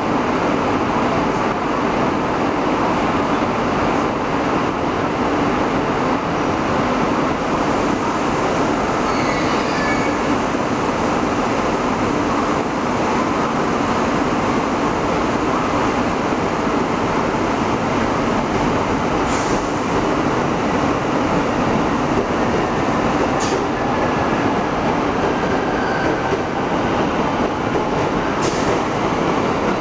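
Steady hum and hiss of a JR series 373 electric train standing at a station, with faint squeals and three short clicks in the second half.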